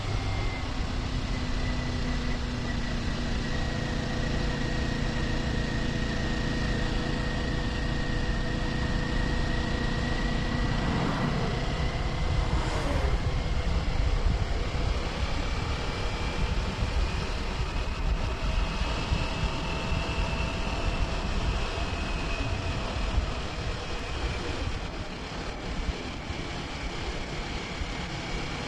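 Kawasaki Ninja 400's parallel-twin engine running at a steady cruise under wind rush, its note drifting slowly up and down in pitch.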